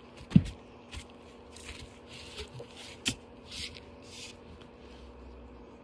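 A Great Dane puppy bumping and brushing against the phone's microphone. There is a thump just after the start, then scattered short scuffing and rubbing noises.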